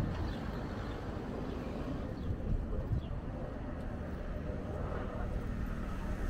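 Outdoor ambience: a steady low rumble with a few faint short high chirps.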